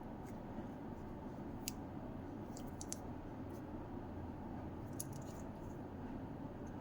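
Several light, sharp clicks, one at a time and in small clusters, over a steady low background hum.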